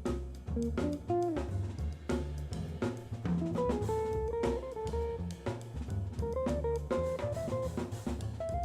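Small jazz group playing: a guitar picks out a melody over bass and a drum kit keeping time.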